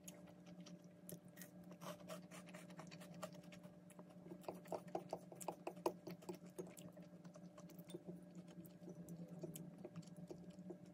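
Faint clicks and taps of wooden chopsticks against a ceramic plate as buckwheat soba noodles are picked up, with a quicker cluster of taps about five seconds in, over a low steady hum.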